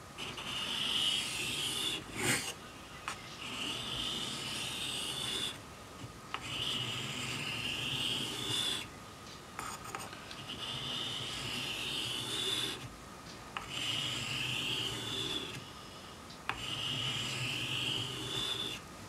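The L-shaped cutter of a Stanley 71 router plane being honed on a combination waterstone: gritty steel-on-stone rubbing in six spells of two to three seconds each, separated by short pauses. A sharp click comes a little over two seconds in.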